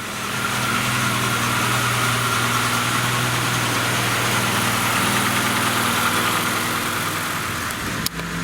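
Classic Lada four-cylinder engine idling steadily with no timing-chain rattle, its valves freshly adjusted and its chain re-tensioned with a new tensioner and damper. A single sharp click about 8 seconds in.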